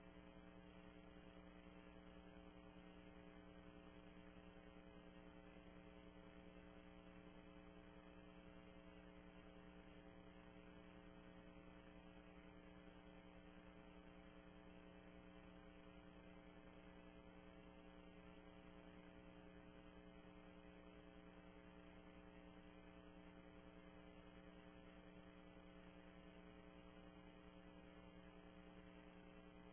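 Near silence: only a faint steady electrical hum with a low hiss, unchanging throughout, with no sound of the lifting itself.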